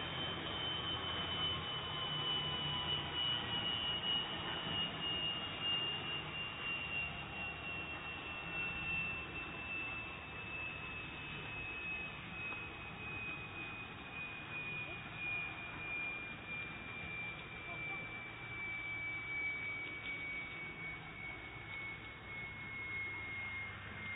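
Jet engine turbine whine from a parked B-52 Stratofortress, one high tone sinking slowly in pitch throughout as the engine spins down, over a low hum and a steady rush.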